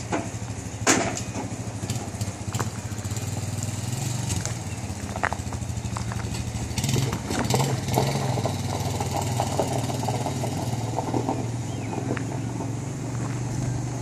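An engine running steadily, with scattered clicks and knocks over it.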